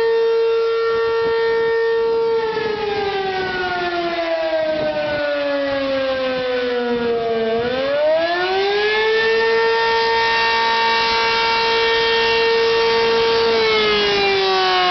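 ACA P-15 tornado siren sounding a wail. The tone holds steady, then slides down in pitch for about five seconds, climbs quickly back up and holds again, and begins to fall once more near the end.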